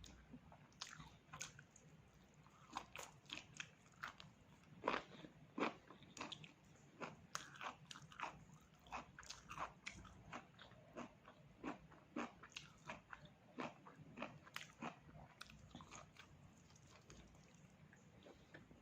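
A person chewing and biting pork, with many short, sharp crunching clicks at irregular intervals, thinning out toward the end.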